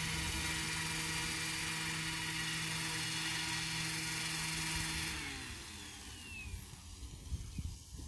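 Model helicopter's motor and rotors running at a steady whine while the craft sits on the ground without lifting off, then spinning down about five seconds in, the pitch sliding down as it fades.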